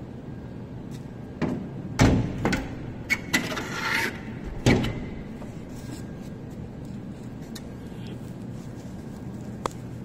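Knocks, thumps and scraping of a floor-standing air-conditioner's casing panel being handled, a burst of several impacts in the first half, then one click near the end, over a steady low hum.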